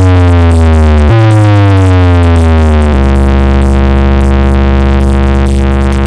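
Loud electronic DJ competition music on a heavy synthesizer bass: two falling pitch drops, then a deep bass note held from about three seconds in.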